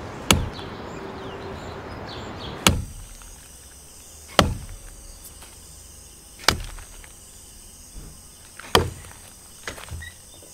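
Heavy blows struck one at a time, five loud sharp knocks about two seconds apart with a few lighter knocks near the end, over a steady hiss that cuts off after the second blow.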